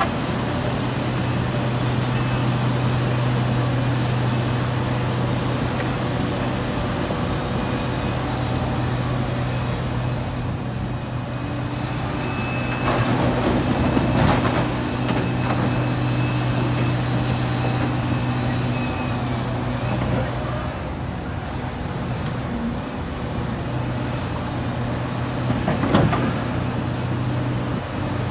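Liebherr R 976 excavator's diesel engine running steadily under load as it digs and loads. About 13 seconds in, a clattering rattle of rock dropping from the bucket into a steel dump-truck bed, and a sharp knock near the end as the bucket strikes the rock.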